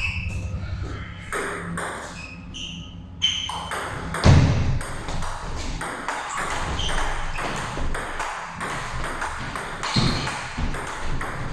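Table tennis rally: the ball's repeated sharp clicks as it is struck by the bats and bounces on the table, with a heavier thump about four seconds in.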